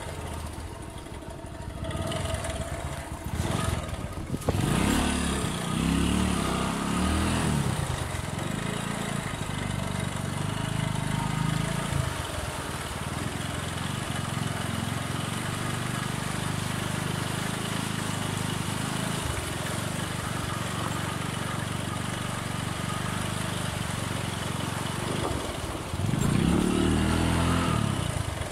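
Bajaj motorcycle engine running, heard from the rider's seat. It revs up and down about four to seven seconds in and again near the end, and runs steadily in between.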